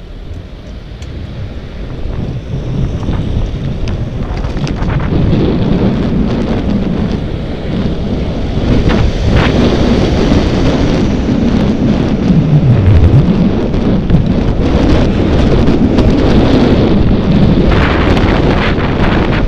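Wind buffeting the microphone of a bicycle-mounted iPhone, growing louder over the first several seconds as the bike gathers speed, mixed with road rumble, scattered rattles and the engine of a vehicle passing close alongside.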